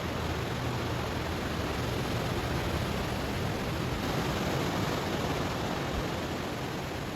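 Ocean waves washing over a stony shore, heard as a steady, continuous rushing hiss with no single crash standing out.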